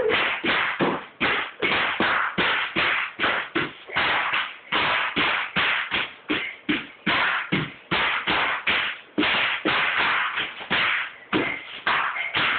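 Bubble wrap being stomped and jumped on by a small child: a quick, uneven run of pops and crackling crunches, about three a second.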